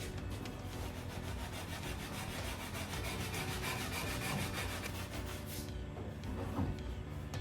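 Hand sanding on a wooden aircraft part: quick, even back-and-forth strokes of abrasive rubbing on wood to take down a spot of buildup.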